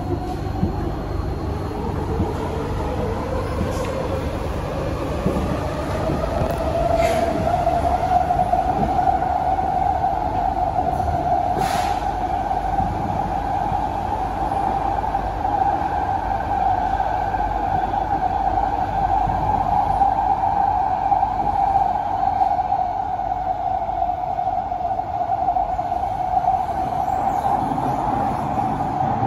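SMRT C151A Kawasaki–CSR Sifang metro train heard from inside the car, running through a tunnel. The traction motors' whine rises in pitch as the train picks up speed over the first several seconds, then holds a steady tone over the rumble of wheels on rail. Two sharp clicks come about seven and twelve seconds in.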